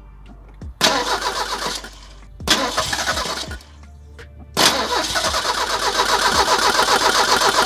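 1985 Merkur XR4Ti's 2.3-litre turbo four being cranked on the starter in three tries, two short ones and then a longer one, turning over in an even beat without catching. It is a no-start that turned out to be caused by bad gas.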